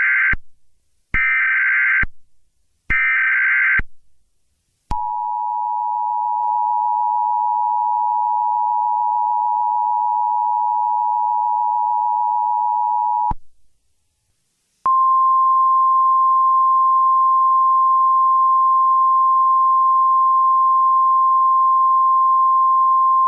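Emergency Alert System tones. Three short, buzzy digital data bursts about a second apart (SAME header) are followed by the two-tone EAS attention signal, held steady for about eight seconds. After a short gap comes a single steady alert tone that lasts to the end.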